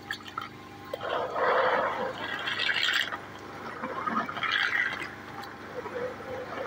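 Hands swishing and sloshing through a large plastic basin of water full of live giant African land snails, washing them after slime extraction, in two spells of splashing.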